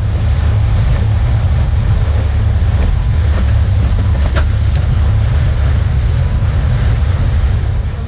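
Small outboard-powered fishing boat running at speed: heavy wind buffeting on the microphone over the rush of water and spray from the wake, loud and steady.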